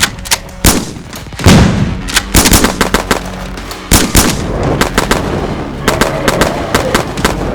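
A rapid, irregular string of sharp gunshot-like bangs, coming in quick clusters, in a Nerf blaster fight.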